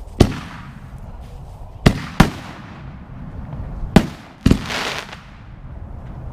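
5-inch canister firework shells going off in five sharp, loud bangs: one right at the start, two close together about two seconds in, and two more about four seconds in. The last bang is followed by about a second of hissing crackle.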